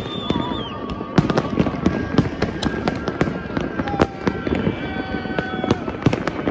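New Year fireworks going off across a city: a dense, irregular stream of overlapping bangs and crackles.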